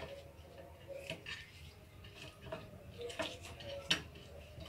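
Faint clicks and soft scrapes of raw rui fish steaks being pressed and turned on a plate by hand as salt and turmeric are rubbed in, with one sharper knock about four seconds in.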